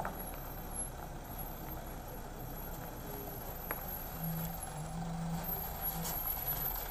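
Mitsubishi Canter (Colt Diesel) light truck's diesel engine running as the truck rolls slowly down a rough gravel road, coming closer and growing slightly louder toward the end. A faint steady low drone joins about four seconds in.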